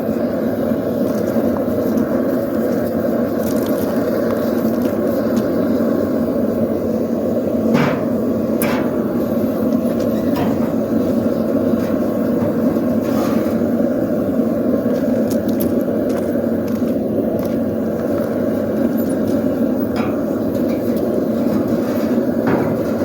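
Blacksmith's forge running with a steady roar, with a few sharp clicks scattered through it.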